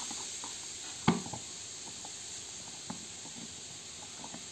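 Acrylic display-box panels, still in their protective film, clicking and tapping as the clear top panel is pressed onto the slotted walls. There is one sharp click about a second in, then a few faint taps, over a steady hiss.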